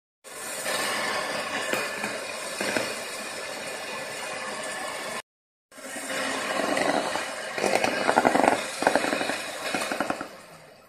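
Electric hand mixer running, its twin metal beaters whipping chilled cream in a bowl with a steady motor whir and beater rattle, as the cream thickens. The sound drops out twice, briefly, and fades away near the end.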